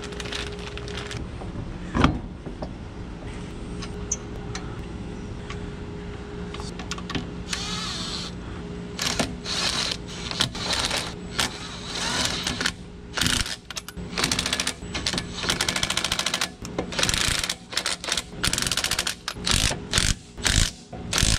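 Cordless Milwaukee impact wrench running lug nuts onto a car wheel in repeated short bursts of rapid hammering, beginning about eight seconds in. A single sharp knock about two seconds in.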